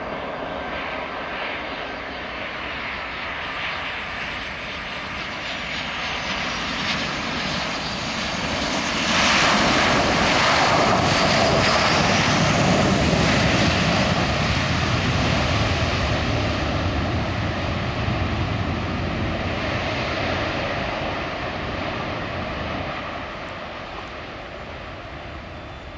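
Boeing 737-800 jet engines as the airliner lands and rolls down the runway: the roar builds, peaks as the plane passes close, then fades as it rolls away. A high whine falls in pitch as it goes by.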